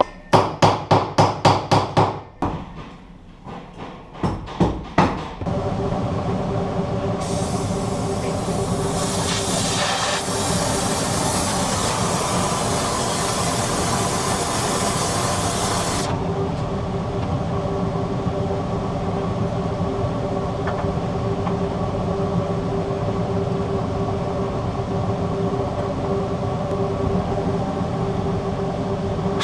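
A quick run of hammer blows on metal, about five a second, then a few more spaced strikes. A steady electric machine then runs with an even hum, with a loud hiss laid over it from about seven to sixteen seconds in.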